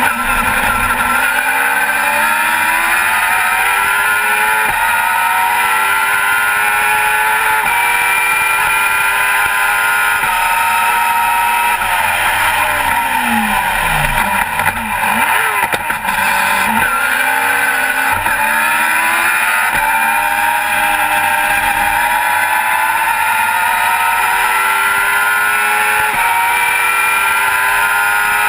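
Onboard sound of a Global GT Light racing car's engine under hard acceleration, its pitch climbing and dropping back at each upshift, over a steady rush of wind and road noise. About halfway through the pitch falls away as it slows and downshifts for a corner, then climbs again through the gears.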